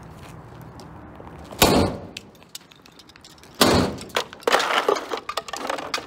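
Plastic upright vacuum cleaner being kicked and smashed: two heavy blows about two seconds apart, then a run of cracking and clattering plastic.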